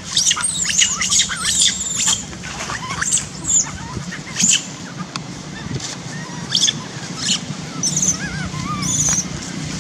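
Baby long-tailed macaque crying with short, high-pitched squeals in repeated clusters, loudest and most rapid in the first two seconds and then in shorter bouts every second or so.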